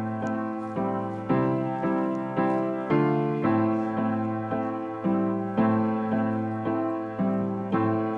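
Background piano music: chords struck at a steady pulse of about two a second, each fading before the next.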